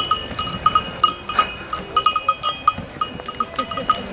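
Bells on a reindeer's harness jingling in an uneven patter, about three or four strikes a second, as the reindeer walks pulling a sleigh.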